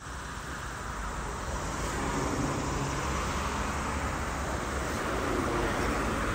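Steady outdoor ambience with road traffic noise, starting abruptly and slowly growing louder.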